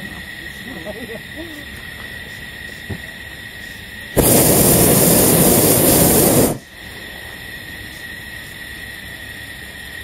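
Hot-air balloon's propane burner firing in a single blast of about two and a half seconds, a loud, even rushing sound that starts and cuts off abruptly about four seconds in.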